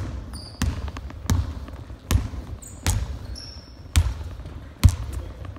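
A basketball being dribbled on a hardwood gym floor, a sharp bounce about every three-quarters of a second. Short high sneaker squeaks sound between the bounces.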